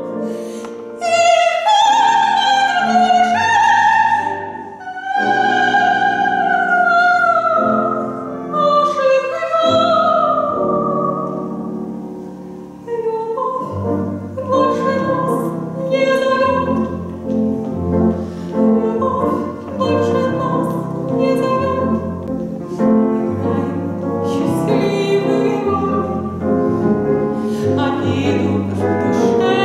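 Soprano singing an operetta aria with piano and double bass. The first half is slow, long sung notes with vibrato; about halfway through, the piano and bass take up a steady rhythmic pattern under the voice.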